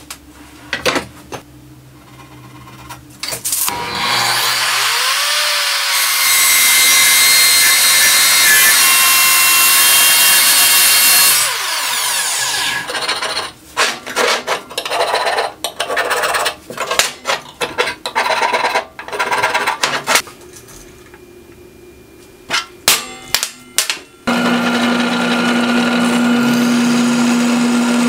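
An Evolution miter saw with a metal-cutting blade spins up with a rising whine and cuts steel bar stock, then winds down. Irregular clanks and taps of steel pieces being handled follow. Near the end a drill press starts with a steady hum to drill steel.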